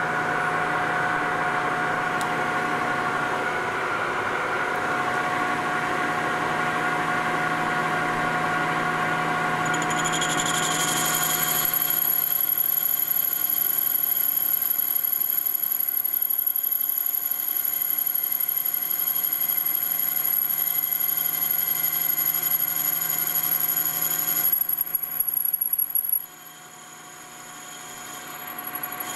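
Emco V13 metal lathe running, a steady machine whine of several tones, while a homemade boring bar is hand-fed into an aluminium bore taking skim cuts. About ten seconds in, higher steady tones join the whine. Near the end the sound drops off sharply, then builds back up.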